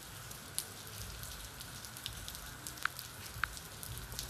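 Steady background noise: a low hum and hiss with scattered faint crackles, and two short ticks about three seconds in.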